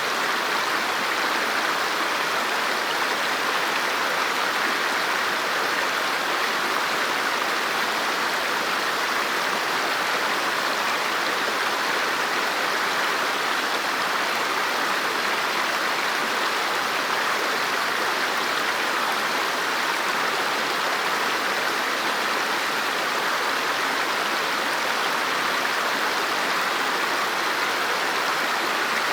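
River water flowing over rocks: a steady, even rush with no breaks.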